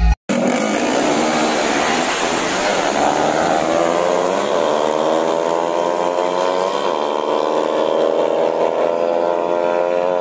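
Drag-racing motorcycles held at high revs, the engine note climbing in pitch with brief dips about four and a half and seven seconds in.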